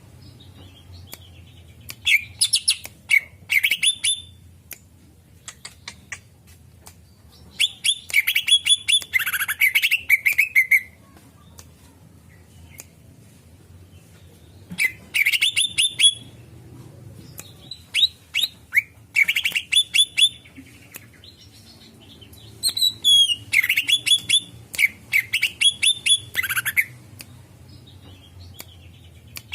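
Greater green leafbird (cucak ijo) singing in repeated bursts of rapid clicking chatter and high gliding whistles, each burst lasting a second or three, with pauses of a few seconds between them.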